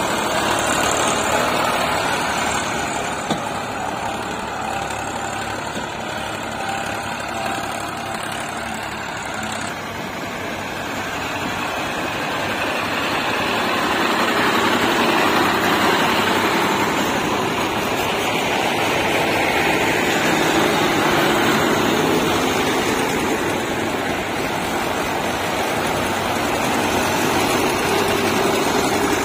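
Diesel tractor engine running steadily, growing louder about halfway through.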